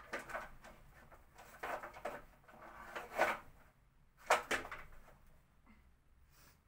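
Several short rustles and knocks from an artificial flower arrangement being handled and moved, the loudest a little past the middle.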